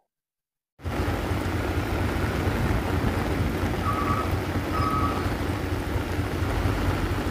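Loaded Fuso tronton dump truck's diesel engine running steadily as it backs up, starting just under a second in, with two short reversing beeps about a second apart near the middle.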